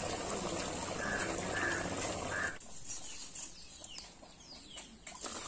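A steady hiss with a few short bird-like calls over it cuts off abruptly about halfway. After that come quieter scattered clicks and scrapes as hot charcoal is raked, with short chirps.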